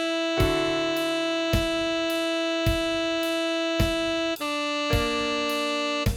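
Tenor saxophone melody, likely a synthesized or sampled sax, playing a few long held notes at slow tempo. A steady beat strikes about once a second behind it.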